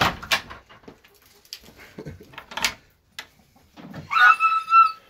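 A dog whining in two high, drawn-out pulls near the end, after a few seconds of rustling and knocks from handling feed at a wire-mesh coop.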